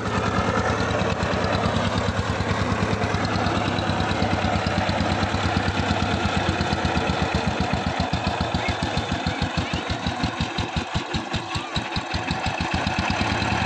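Two-wheel power tiller's single-cylinder diesel engine running with a steady chugging beat. About two-thirds of the way in the beat slows and thins for a few seconds, then picks up again.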